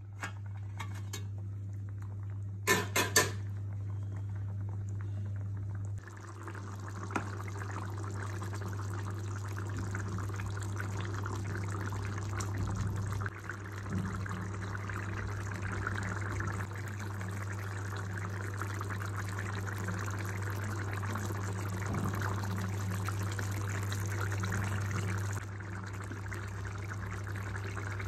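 Taro curry (chamadumpa pulusu) bubbling and simmering in a pan, over a steady low hum. A metal plate lid clatters a few times near the start, loudest about three seconds in.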